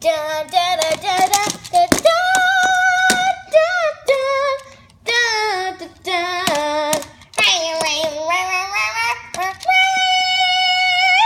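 A child singing a wordless tune in a high voice, gliding between notes and holding long ones, with a few sharp clicks.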